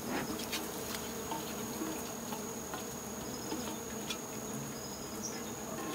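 Swarm of wild honey bees buzzing steadily around their opened hive as the comb is cut out, with a steady high tone over the buzz.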